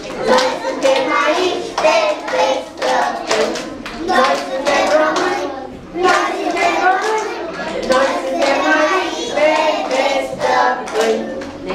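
A group of preschool children singing a Romanian patriotic song together, with hand claps throughout.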